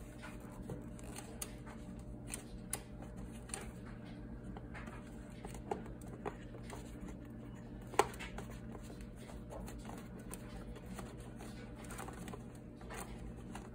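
Faint scattered clicks and light rattling of a hard plastic display case being handled while a slot car truck is unscrewed from its base, with one sharper click about eight seconds in, over a steady low hum.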